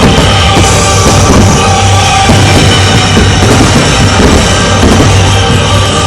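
Loud rock music with drums, playing steadily.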